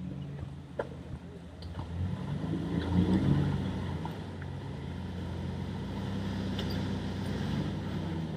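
Off-road 4x4's engine running at low speed on a rock-crawling trail; it swells and rises briefly a couple of seconds in as it takes load, then settles to a steady run. A few sharp knocks can be heard.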